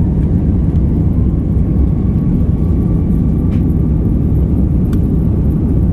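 Airliner cabin noise during a roll along the runway: a steady low rumble of the jet engines and wheels, heard through the cabin.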